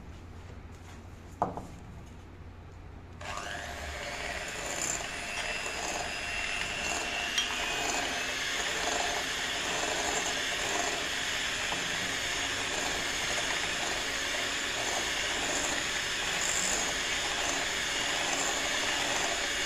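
A single click, then about three seconds in an electric hand mixer starts and runs steadily, its beaters churning cheesecake filling in a glass bowl.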